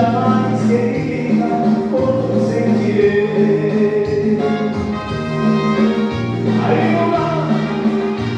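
Music from a song: held vocal or choir-like notes over a steady repeating bass line, with no clear sung words.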